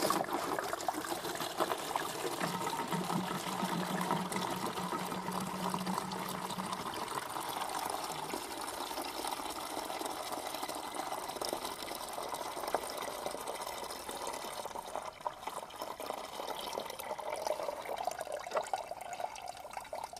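Engine coolant pouring out of the disconnected lowest coolant hose of a 2015 Suzuki GSR 750 as the cooling system is drained for a coolant change, a steady stream of liquid that eases slightly toward the end.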